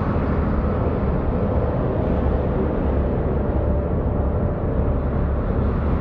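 Industrial ambient drone: a steady, low rumbling haze with a faint held tone above it, unchanging throughout.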